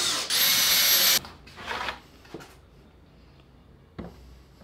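Plywood router table being slid into place on the workbench, a loud scrape that stops about a second in, followed by a knock and a few light clicks as it seats.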